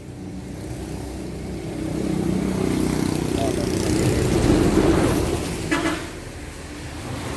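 A motor vehicle, likely a motorbike, passing in the street: its engine swells to a peak about four and a half seconds in, then fades away.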